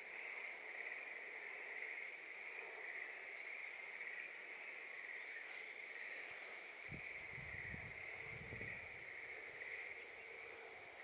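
Faint, steady insect trill, with a few short high chirps scattered through and a brief low rumble about seven seconds in.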